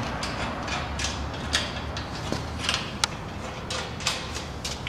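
Scattered small metallic clicks and taps, irregularly spaced, from steel rail parts and T-nuts being handled and lined up, over a low steady hum.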